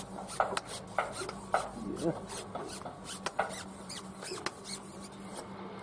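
Repeated short, sharp scraping or rasping strokes, evenly spaced about one every 0.6 s at first and then uneven, over a faint steady low hum.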